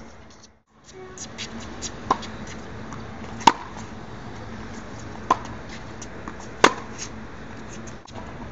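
Tennis balls struck by racquets in a groundstroke rally: four sharp pops about one and a half seconds apart, alternating fainter and louder, over steady background noise. The sound drops out briefly just under a second in.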